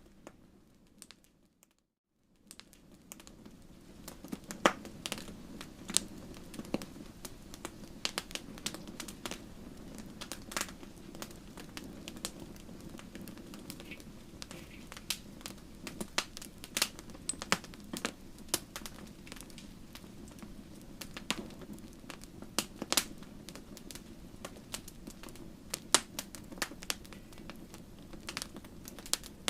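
Bonfire crackling, with irregular sharp pops over a steady low rush. The sound cuts out briefly near the start.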